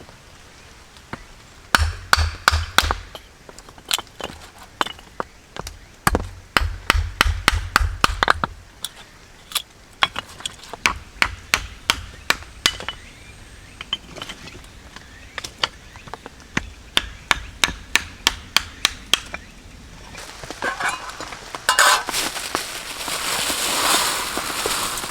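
Rapid blows on wood in runs of several strikes a second, each with a dull thud, as in chopping or splitting firewood with a hand axe or knife. Near the end a steady hiss builds up.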